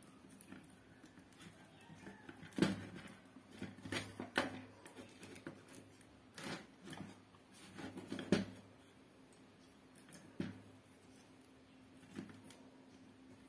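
Scattered clicks, taps and knocks of a power cord and its grommet being handled and fitted into the plastic casing of an opened extension box, over a faint steady low hum.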